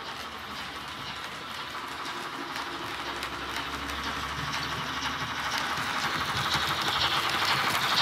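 Märklin model steam locomotive and passenger coaches running along the track, a fine rattle of wheels on rails that grows steadily louder as the train comes close, loudest near the end.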